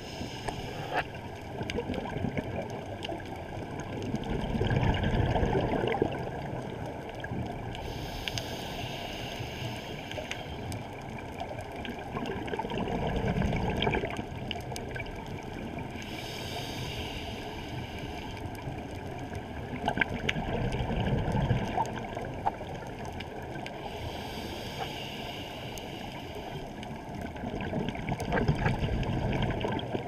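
Scuba diver breathing through a regulator, heard underwater: a loud rush of exhaled bubbles about every eight seconds, with a fainter hiss of inhaling between them.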